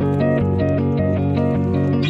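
Background music: plucked guitar-like notes over sustained chords in a steady, even rhythm.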